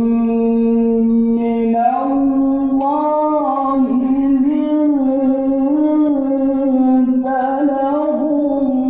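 A single male voice chanting Quran recitation (tilawah) in long held melodic phrases, with ornamented turns. It moves to a higher note about two seconds in.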